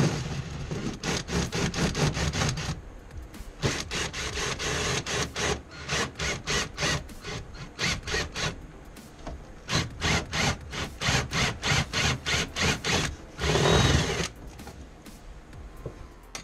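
Power drill driving a bi-metal hole saw through the aluminum-backed wall of a livewell box, triggered in quick pulses of about three a second with a few longer runs between.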